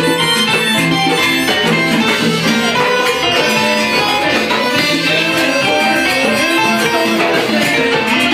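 Live Cuban salsa band playing dance music over a repeating bass line.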